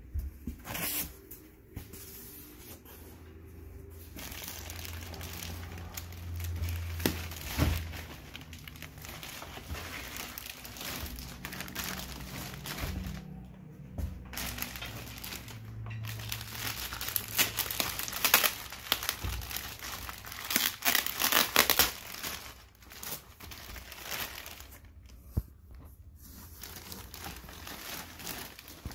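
Clear plastic bag and foam packing sheet crinkling and rustling as they are handled around a boxed gaming chair, in uneven bursts that are busiest and loudest about two-thirds of the way in, with a few dull knocks against the cardboard box.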